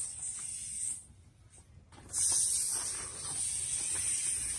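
Steady high-pitched hiss, broken by about a second of near silence a second in.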